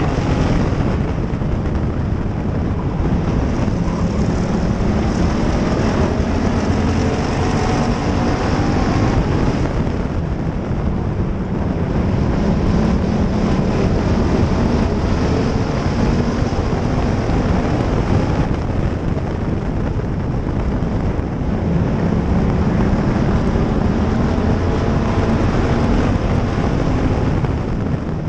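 Race car engine running hard on an oval track, heard onboard, its pitch sagging into the turns and climbing again on the straights, with wind rushing over the hood-mounted camera.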